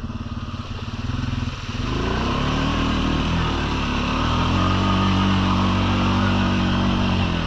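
Four-wheeler (ATV) engine pulling away: the revs climb about two seconds in, dip briefly, then hold steady at a higher pitch under a steady hiss.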